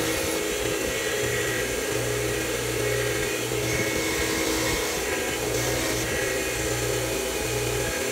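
Bench grinder running steadily, its spinning wheel scouring rust off a steel pipe wrench pressed against it, a constant motor hum under a rough abrasive hiss.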